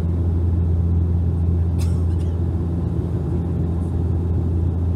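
Bombardier Q400 turboprop engines and propellers droning steadily, heard from inside the passenger cabin: a deep, even hum with a second, higher tone above it.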